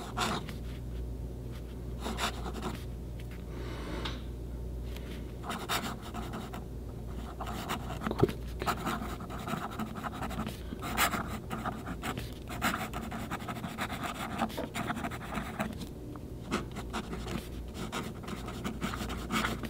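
Fountain pen nib scratching across paper in short irregular strokes as a sentence is written in cursive; the nib is one the owner finds a touch scratchy, its tines set rather tight.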